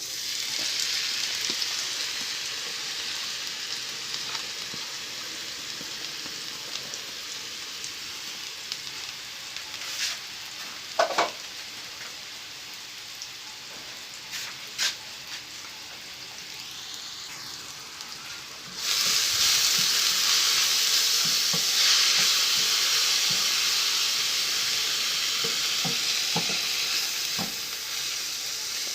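Onions sizzling in hot oil in a frying pan, with a few short knocks near the middle. The sizzle jumps suddenly louder about two-thirds of the way through.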